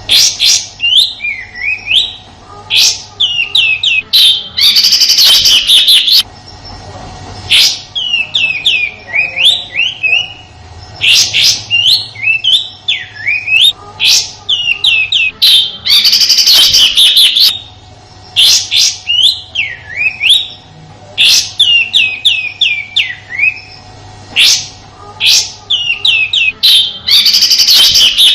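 Kapas tembak, a bulbul, singing its rough 'tembakan' song: quick runs of sharp, falling whistled notes, broken three times by dense, harsher bursts lasting about a second, the first some five seconds in and the last near the end. A faint steady hum runs underneath.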